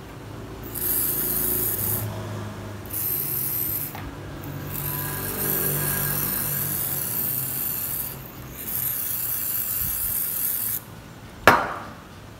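Aerosol cleaner spray can hissing in four bursts of one to three seconds each, then a single sharp knock near the end.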